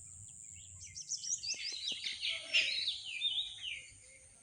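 A songbird singing a quick, busy run of chirps and sliding whistled notes, starting about a second in and stopping shortly before the end, over a steady thin high-pitched background tone.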